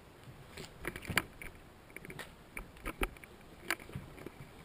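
Footsteps on a gritty, debris-strewn concrete floor: a string of irregular sharp clicks and knocks.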